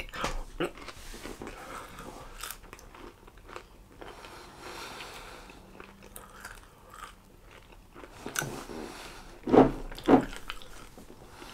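A man chewing coated chicken chunks close to the microphone: a run of small crunches and wet mouth sounds, with a few louder chews near the end.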